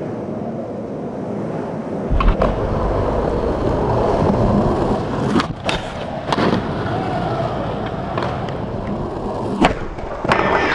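Skateboard wheels rolling on concrete, with several sharp clacks of the board popping and landing and a slide along a metal stair handrail.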